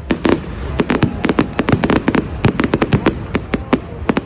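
Bonfire Night fireworks display: a rapid, irregular string of sharp bangs and crackles, several a second, thickest in the middle, over a low rumble.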